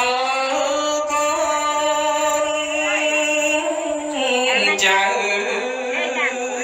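A single voice chanting Khmer smot. It holds one long note for about four seconds, then drops in pitch and moves into a run of wavering, ornamented turns.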